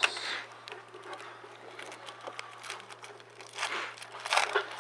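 Foil wrapper of a Topps Chrome baseball card pack crinkling and tearing open, with a louder rip near the end.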